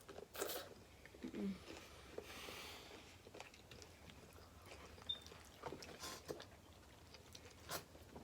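Faint eating sounds at a table of boiled seafood: chewing, with scattered small cracks and clicks.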